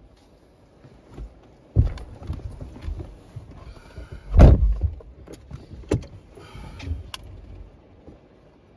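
Thumps and shuffling inside a car's cabin as people get in, with a car door shutting, the loudest thump, about halfway through; smaller knocks follow about a second and a half and two and a half seconds later.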